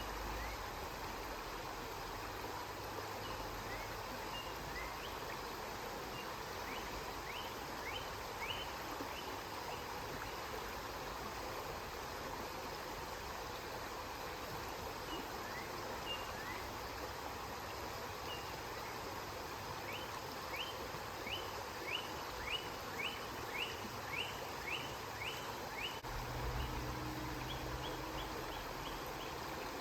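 River water flowing steadily. A small bird chirps over it, first scattered and then in a run of quick, evenly spaced chirps, about two a second. A low hum joins in near the end.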